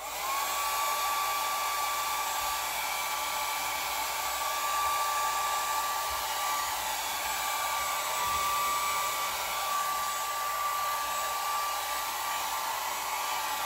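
Small handheld hair dryer switched on, its whine climbing quickly to speed, then running steadily with an even rush of air, blown at a canvas to dry fresh paint.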